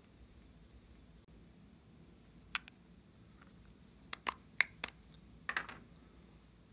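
Plastic lipstick tubes and caps being handled and pulled apart, giving sharp plastic clicks: one about two and a half seconds in, a quick run of four a little after four seconds, then a short scraping click about five and a half seconds in.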